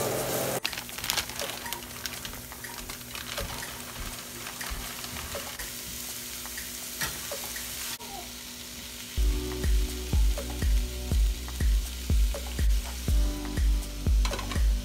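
Diced onions and vegetables frying in a small pan: an even sizzle with the clicks and scrapes of a spatula stirring. From about nine seconds in, background music with a steady low beat comes in over it.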